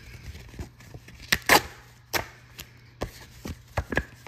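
Stiff card-stock scratch-off lottery tickets being handled and shuffled on a table mat: a run of sharp paper clicks and snaps at uneven intervals, the loudest with a brief rustle about a second and a half in.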